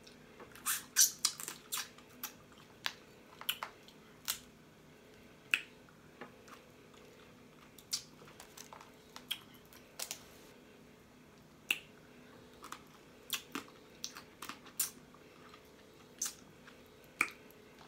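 Close-up eating of steamed blue crabs: irregular sharp cracks and snaps of crab shell being broken apart, mixed with lip smacking and chewing, densest in a quick cluster about a second in.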